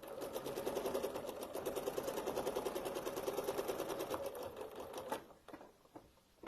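Sewing machine stitching at a fast, even rate for about five seconds, then stopping.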